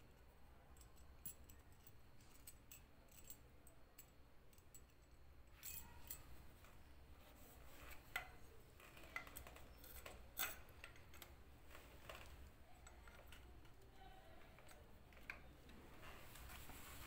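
Faint clicks and light metallic knocks of an appliance motor and its aluminium end bracket being handled, with a few sharper clinks between about eight and ten and a half seconds in.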